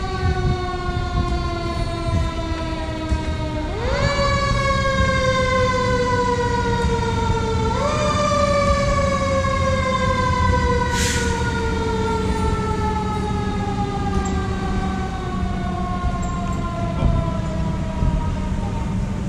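Fire engine's mechanical siren winding down in a slow falling wail, spun up quickly twice, about four and eight seconds in, then coasting down for the rest, over the low steady rumble of the truck. A short hiss about eleven seconds in.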